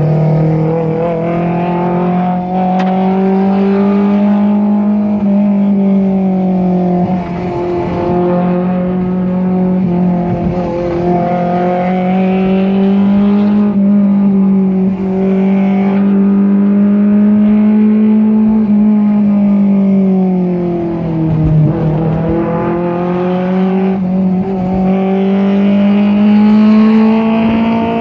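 Honda S2000's inline-four running through a 70 mm Litespec titanium single exhaust, heard from inside the cabin while driving. A steady, loud engine note rises and falls with the throttle, dips about 21 seconds in, then climbs again.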